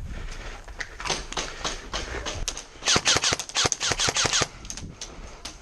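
Airsoft guns firing: scattered shots from about a second in, then a fast string of rapid shots, loudest from about three seconds in, ending about a second and a half later.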